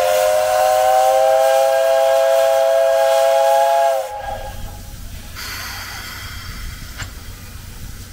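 Steam whistle of steam locomotive 8630 (JNR Class 8620) sounding one long blast, rising slightly in pitch as it opens, then cutting off about four seconds in. A quieter steady hiss of steam follows.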